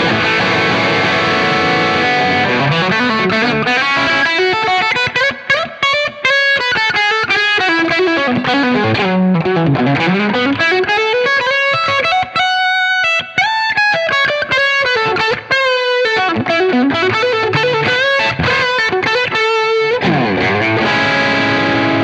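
Electric guitar played through an IK Multimedia TONEX model of a Marshall SV20H amp with a distorted crunch tone. It opens on a held chord, moves into quick single-note lead runs that climb and fall, and a new chord is struck near the end and left ringing.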